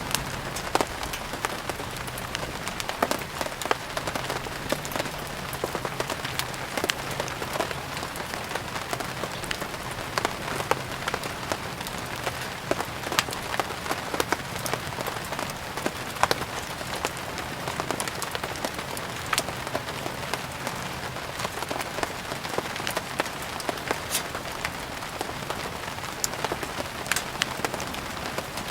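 Steady rain falling, mixed with the frequent irregular crackles and pops of a burning wood fire.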